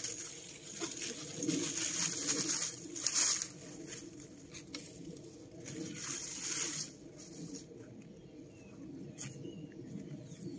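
Dry, dead cucumber vines rustling as they are pulled up and gathered by hand, in several bursts; the longest comes about one and a half to three and a half seconds in, another near two thirds of the way through.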